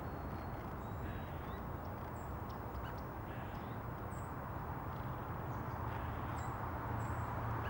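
Scattered short, high chirps of small birds over a steady low rumble of background noise.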